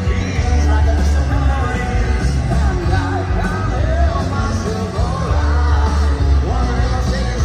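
Live rock band playing loud through a stadium sound system, with a strong, steady bass and singing over it.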